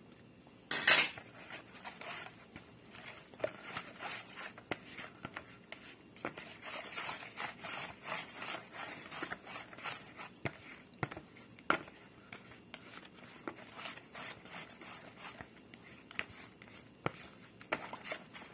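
Silicone spatula stirring and scraping in a plastic mixing bowl, mixing warm water, sugar and yeast, with many short scrapes and a few sharper clicks against the bowl. There is a loud knock about a second in.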